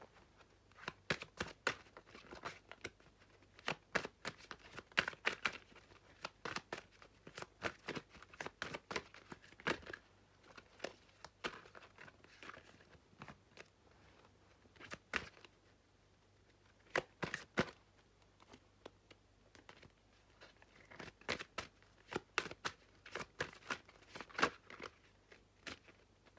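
A deck of oracle cards shuffled by hand: papery snaps, slaps and flutters in irregular clusters, with short pauses between rounds.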